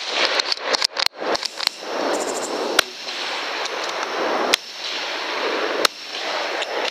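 Rifle shots fired at hogs through a night-vision scope: a quick cluster of sharp cracks and clicks in the first second and a half, then single shots about every second and a half, over a steady rushing noise.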